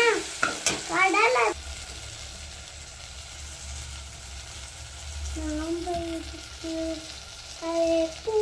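Onion, tomato, curry leaves and spices sizzling in hot oil in an aluminium pressure cooker while a spoon stirs and scrapes the pan. The stirring is loudest in the first second and a half; after that the sizzle is quieter and steady.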